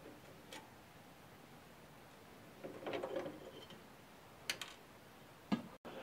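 Faint scattered clicks and light metallic ticks of a screwdriver working a screw on the metal bar over an AlphaServer 1000's CPU board, with small clatters as the bar's metal parts are handled: one tick about half a second in, a short cluster around three seconds, and sharper clicks near the end.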